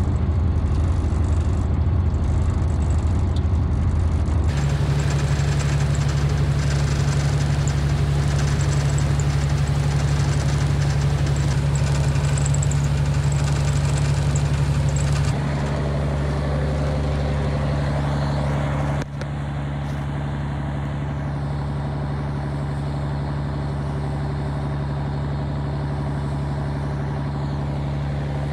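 Ferry boat's engine running steadily underway: a loud, constant low drone that changes in tone abruptly a few times.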